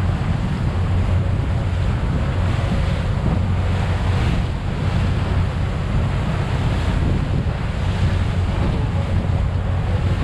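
Wind buffeting the microphone and the rush of white wake along the hull of a motor boat under way, over a steady low rumble.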